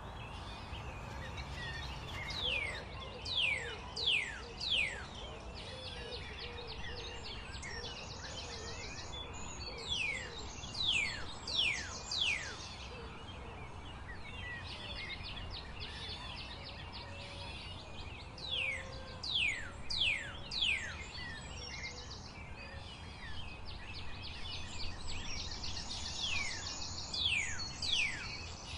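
Birds singing: groups of three or four quick, steeply falling high whistles repeat every few seconds, with short buzzy trills between them, over a steady low background hiss.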